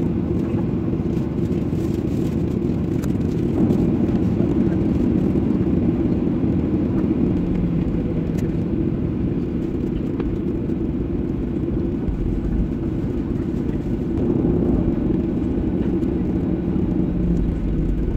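Cabin noise of a jet airliner rolling along the runway and taxiway after landing: a steady low rumble of the engines and wheels, swelling slightly a few seconds in and again near the end.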